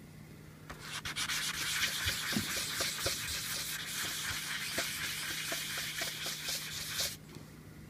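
Tobacco pipe bowl's rim being rubbed on 400-grit wet/dry sandpaper laid flat, topping the rim smooth after coarser sanding: a steady scratchy sanding sound that starts about a second in and stops shortly before the end.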